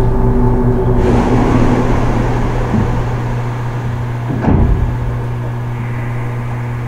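Keio 8000 series electric train standing at the end of its run: a burst of air hiss about a second in, and a sharp knock a little past halfway, over a steady low electrical hum. The hiss and knock are the pneumatic doors opening.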